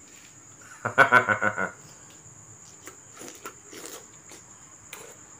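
A man eating ripe mango slices by hand: a short, pulsing vocal sound about a second in, then soft clicks and smacks of chewing.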